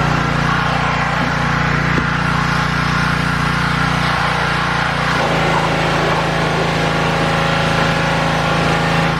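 Gas-engine pressure washer running steadily, its engine note shifting slightly about five seconds in.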